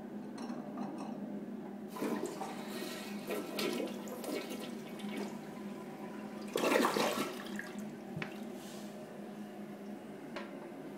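A Kohler toilet flushing. The water rushes into the bowl and swirls down the drain; it is loudest about two-thirds of the way through, then runs on more quietly.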